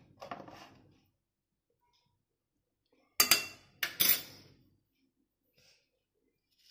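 Two sharp metallic clinks of a spoon against kitchen containers, a little under a second apart, each ringing briefly.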